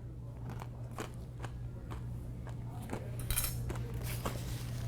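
Spoon clicking and scraping in a cup of soft-serve Blizzard while someone eats, chewing Oreo pieces and crunchy candy bits: a scatter of small irregular clicks, with a short scraping rustle a little past three seconds in.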